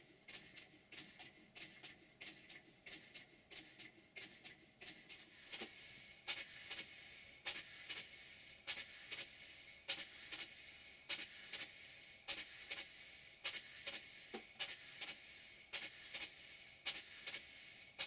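Model steam engines running, each exhaust beat a sharp puff of hiss. First the Cotswold Heritage hypocycloidal engine runs at a quick, even beat of about three a second. From about six seconds in, the Cotswold Heritage Vulcan beam engine follows with slower, louder beats that come in pairs about once a second.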